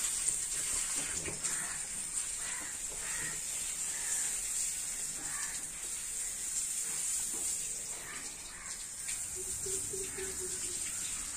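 Garden hose running, its water spraying and splashing over a Rottweiler's wet coat during a bath: a steady hiss of water, with a brief pulsing low sound near the end.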